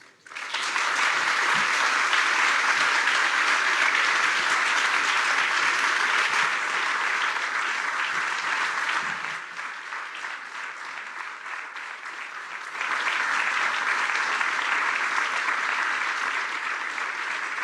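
Audience applauding, starting abruptly. The clapping thins out partway through, then swells again for several more seconds.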